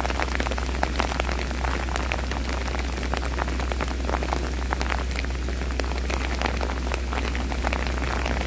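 Heavy rain falling steadily, with many sharp, close raindrop hits over a steady low hum.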